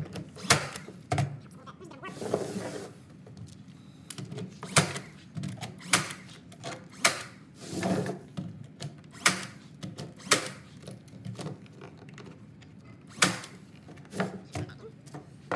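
Cordless Porter-Cable nail gun firing nails into the side of a wooden frame: a series of sharp single shots, one every second or two, with a longer gap in the middle.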